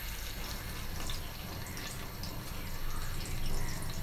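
Onions frying in hot oil in a pressure cooker on a gas stove: a steady sizzle with scattered small crackles.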